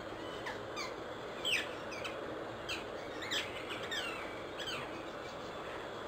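Rose-ringed parakeet calling: a run of short, sharp calls, each falling in pitch, repeated about every half second to a second.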